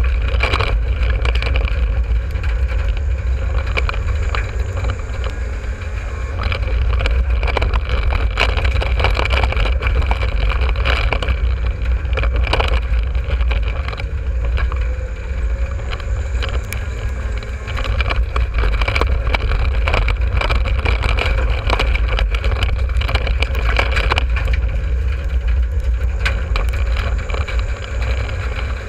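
Dirt-track race car's engine running hard, heard from inside the stripped cockpit: a loud, heavy low rumble whose note rises and falls, with frequent knocks and rattles throughout.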